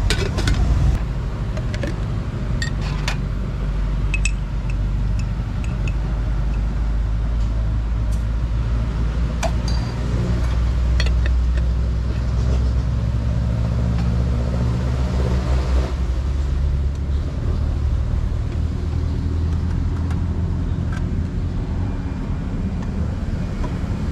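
Steady low rumble of road traffic, swelling as a vehicle passes about two-thirds of the way through. Scattered light metallic clinks of a steel kettle and cup being handled.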